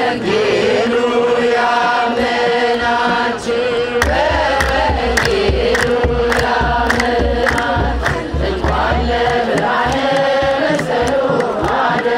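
A crowd of voices chanting an Ethiopian Orthodox hymn together in long held notes, with sharp percussive strokes throughout and a low rumble from about four to nine seconds in.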